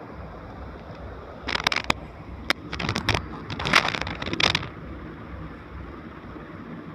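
Pen scratching on notebook paper in a quick run of short strokes while writing out letters, from about a second and a half in until near the five-second mark.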